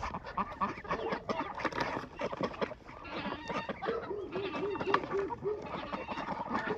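A flock of farm poultry calling over one another, a mix of honking, quacking and clucking. About four seconds in there is a quick run of six short, even calls.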